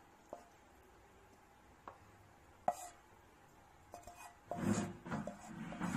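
Spatula scraping cooked tomato chutney mixture out of a non-stick pan into a steel mixer-grinder jar: a few light clicks and knocks of utensil on metal, then steadier scraping and clatter starting about four and a half seconds in.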